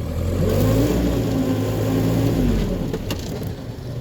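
Land Rover Series II's 2.25-litre petrol four-cylinder engine under load while driving: its note rises about half a second in, holds for about two seconds, then falls away. The driveline noise is what the owner takes for a noisy pilot bushing in the freshly fitted gearbox.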